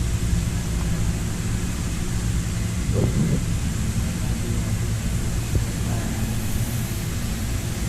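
Steady low mechanical hum of running machinery under a constant hiss.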